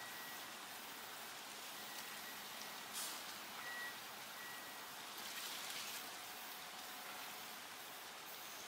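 Aerosol spray-paint can hissing in short bursts as paint is sprayed onto a wall, over a faint steady hiss.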